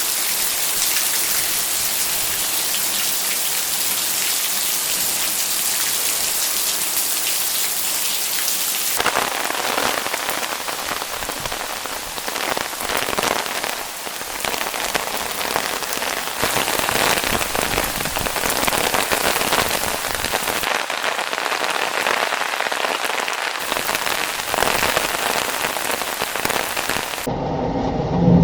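Heavy rain pouring down in a thunderstorm: a dense, steady hiss of downpour whose tone shifts abruptly a few times.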